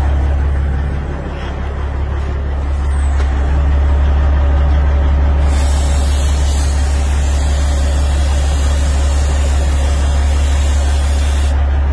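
Aerosol can of GreaseABull spray grease hissing steadily for about six seconds, starting about halfway in, as it coats a truck's fifth wheel. Under it, a semi truck's diesel engine idles with a steady low hum.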